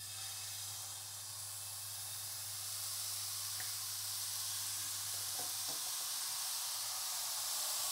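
Thin blini batter sizzling in a hot frying pan: a steady hiss that starts the moment the batter hits the pan and grows slightly louder as the pan is swirled.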